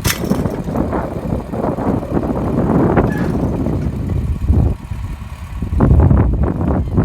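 An engine running loudly; it eases off about halfway through and picks up again a second later.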